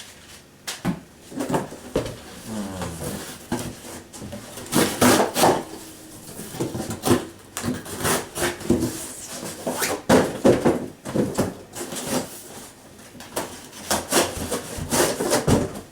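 A knife edge making repeated, irregular scraping strokes with short squeaks, the loudest near the middle and again near the end.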